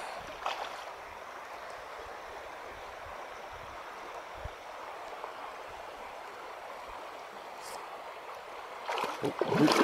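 Shallow river current running steadily over a gravel bed. A hooked steelhead splashes briefly at the surface about half a second in, and louder splashing starts near the end.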